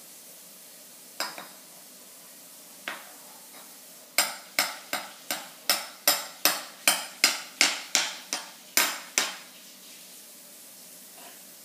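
A small child striking an overturned plastic tub with a metal spoon: two single knocks, then a run of about fourteen sharp taps, nearly three a second, each ringing briefly.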